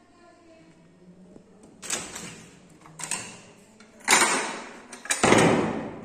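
A glass-top gas stove being handled on a table: a few light knocks, then a loud bump about four seconds in, and a heavier bump and scrape as it is set back down near the end.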